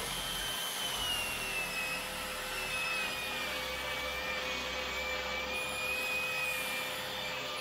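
Small handheld electric power tool running steadily as it sands along a fibreglass joint. Its motor whine sags slowly in pitch as it is pressed into the work.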